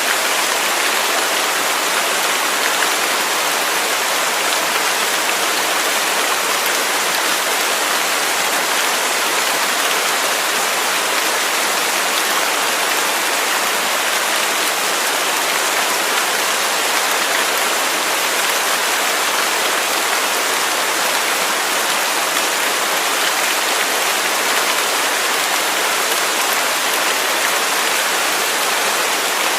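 Waterfall: a steady, unbroken rush of falling water, bright and hissing, with little low rumble.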